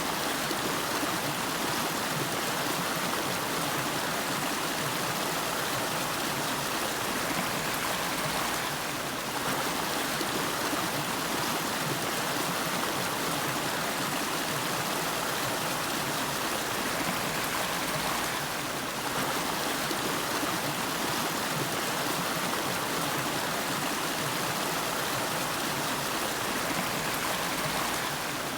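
Nariki River flowing, a steady, even rush of water with no breaks or changes.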